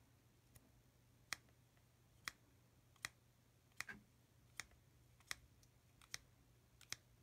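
Brush tip of a Stampin' Write marker flicked against its cap to spatter ink onto card: about nine light, sharp clicks, one every three-quarters of a second or so.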